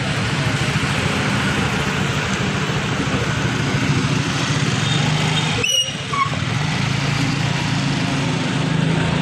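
Motor vehicle engine running steadily under loud wind and road noise, as heard while riding, with a brief break just past halfway.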